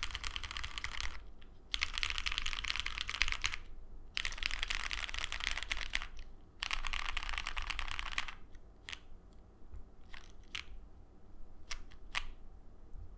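Mechanical keyboard with lubed Cherry MX Black Hyperglide linear switches on an aluminum plate, under GMK keycaps. Fingers roll across the home row keys "asdfghjkl" in four quick runs of dense clicking, about two seconds each. Near the end come a few single keystrokes.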